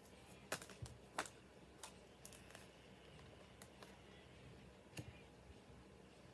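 Near silence with a few faint, sharp clicks and taps from tarot cards being handled, the clearest near the start and one about five seconds in.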